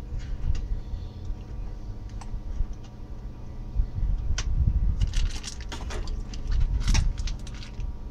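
Hands handling and fitting the plastic base of an electric rice cooker back onto its body: scattered light clicks and knocks of plastic parts, with a cluster of louder clacks from about four to seven seconds in.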